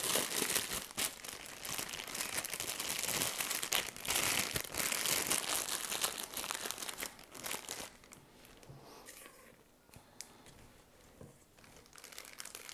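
Piping bag crinkling and rustling as buttercream is filled into it; the crinkling eases off about eight seconds in.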